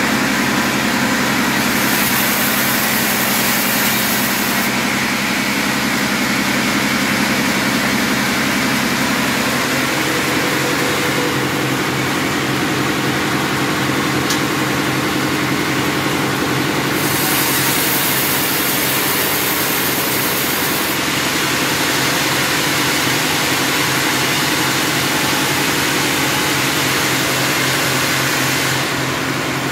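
Sawmill band saw and its drive running loud and steady, a continuous mechanical hum with hiss. The low hum changes about ten seconds in, and the high hiss brightens twice.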